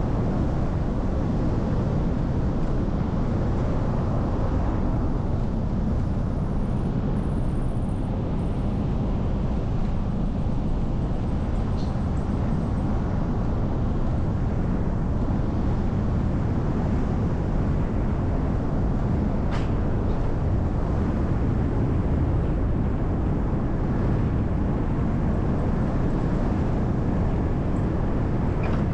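City bus driving steadily along a road: a constant low rumble of engine and road noise.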